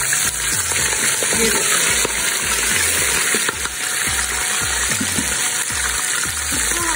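Boiled goat trotters frying in hot ghee in a pot: a steady, loud sizzle of wet meat in oil.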